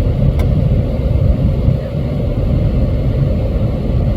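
Truck engine idling with a steady low rumble, and one short sharp click about half a second in.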